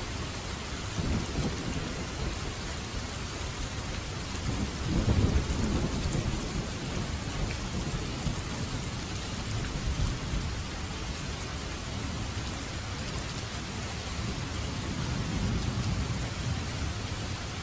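Heavy rain falling steadily, with low rolls of thunder rumbling in several times, the loudest about five seconds in.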